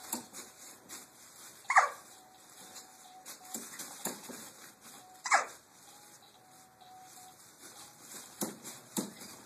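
A baby's voice: two high squeals that fall in pitch, about three and a half seconds apart, with faint hums between them, over light clicks as she bounces in a doorway jumper.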